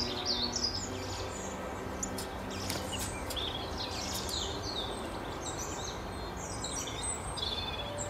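Small songbirds chirping and twittering, many short quick calls from several birds overlapping one another.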